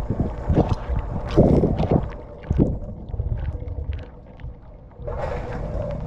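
Dishwasher spray arm throwing water against the racks, dishes and camera, heard from inside the tub as loud, irregular splashing that thins out after about two seconds. About five seconds in, a steadier run starts with a low, even hum under the spray.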